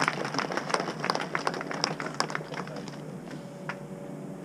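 Crowd applauding with many hands clapping, the applause thinning out and dying away about three seconds in.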